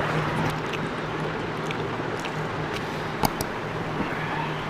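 Steady background hum and hiss with a few light clicks scattered through it, the sharpest one about three seconds in.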